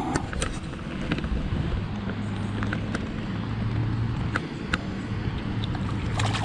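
A steady low motor hum that sets in about two seconds in, with scattered light clicks over it.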